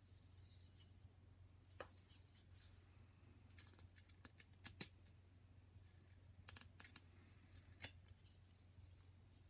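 Faint slicing clicks and scrapes of a carving knife cutting into a small wooden figure, a few short cuts at irregular intervals, over a low steady hum.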